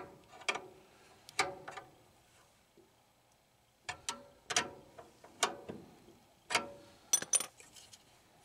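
Sharp metallic clicks and clinks, a dozen or so at uneven spacing with a pause in the middle, from a socket ratchet and loose sockets being worked against the metal housing of an oil burner.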